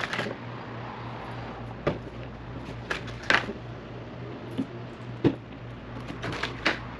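Irregular small clicks and taps of pop rivets being handled and pushed into the holes of a plastic kayak accessory rail, over a low steady hum.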